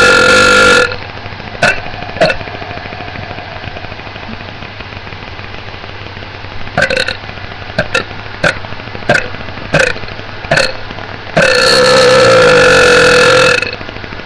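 A person burping over and over: a long burp trails off just under a second in, then a run of short burps, and near the end one long, loud, drawn-out burp lasting about two seconds.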